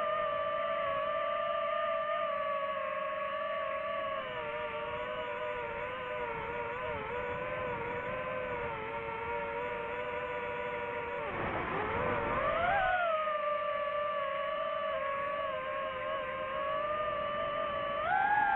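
DJI FPV drone motors and propellers whining in flight, the pitch wavering with throttle. About eleven seconds in the whine drops sharply with a rush of air, then climbs back as the throttle is opened again.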